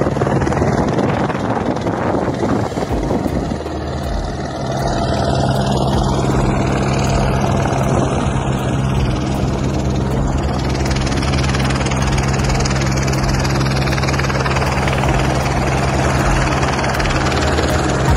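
A motor runs steadily with a constant low drone. Wind buffets the microphone for the first three or four seconds.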